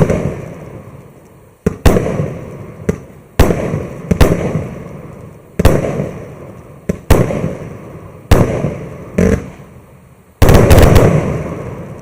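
MAXSEM Scintillant MC116 firework battery firing: about a dozen loud bursts at uneven intervals, each trailing off into a fading crackle, with a dense, loudest volley near the end as the finale.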